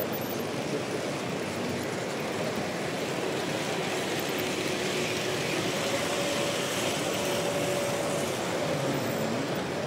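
Steady background din of a busy exhibition hall, with model trains running along the layout's track; a faint steady whine rises out of it for a few seconds in the middle.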